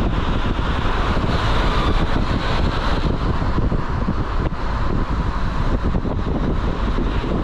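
Wind buffeting the microphone over the steady road rumble of a moving vehicle.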